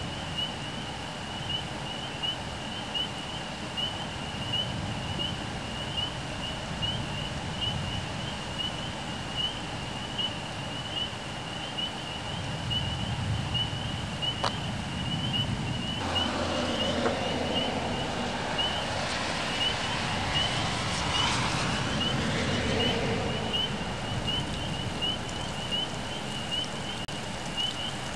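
Thunderstorm ambience outdoors: a steady hiss of wind and rain, with a low rumble near the middle. Later a rushing noise swells and fades over several seconds.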